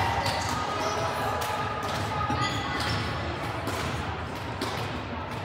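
Volleyballs bouncing and thudding on a hardwood gym floor, over a murmur of voices, echoing in a large hall.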